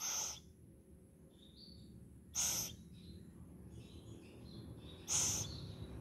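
Owl chicks giving three short hissing calls, about two and a half seconds apart, with faint high peeps between them.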